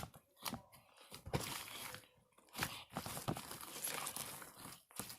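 Homemade slime mixed with shaving cream being squeezed, stretched and kneaded by hand, making irregular crackling, crinkling sounds.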